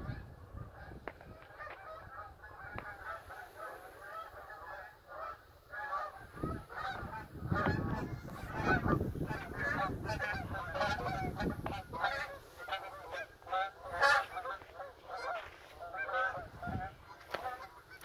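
A flock of Canada geese honking, many overlapping calls that grow busier about six seconds in.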